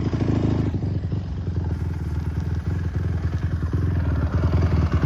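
Dirt bike engine running steadily, with rapid firing pulses, easing off slightly early on and getting louder toward the end.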